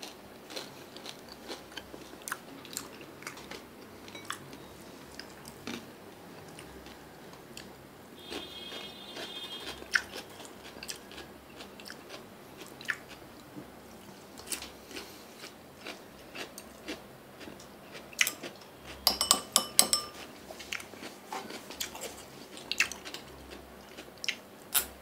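Someone eating close to the microphone, chewing and crunching food, with scattered light clicks of chopsticks against bowls and a plate. A quick run of clinks comes a little before the end.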